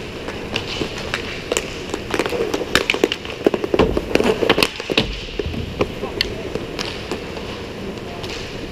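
Roller hockey play on a plastic tile rink floor: a rapid clatter of hockey sticks and puck knocking on the tiles, with inline skate wheels rolling. The clatter is densest and loudest in the middle, as the skaters come close.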